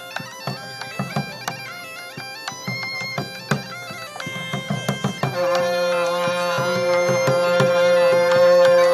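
Music: a stepping melody over regular drumbeats. About five seconds in, a loud steady drone comes in under the melody and the music gets louder.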